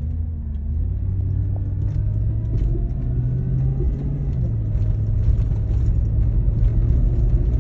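2005 GMC Yukon Denali XL's 6.0-litre V8 pulling under throttle: a steady low drone with a faint whine above it that slowly rises in pitch. The whine remains after the power steering pump was replaced and the hydraulic system flushed, and the owner rules out the transmission.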